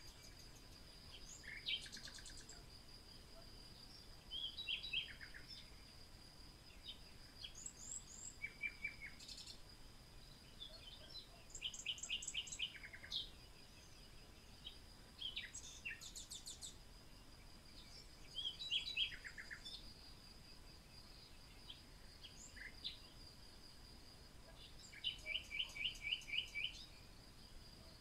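Several small birds singing: short chirps and quick rapid trills every second or two, over a steady high-pitched whine.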